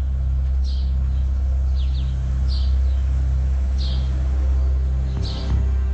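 A steady deep low drone, with short high bird chirps about once a second over it.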